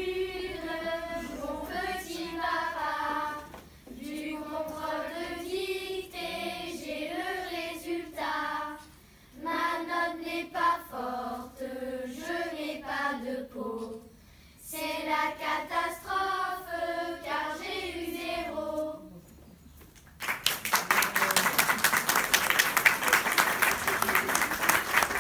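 A class of ten- to eleven-year-old schoolchildren singing a song together in short phrases. About twenty seconds in, the singing stops and the audience applauds.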